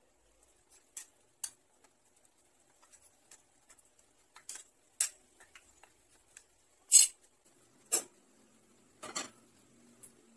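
Kitchen handling noises: scattered light clinks and knocks of spoons, bowls and dishes, with a few louder clanks in the last few seconds as a frying pan is handled at a gas stove.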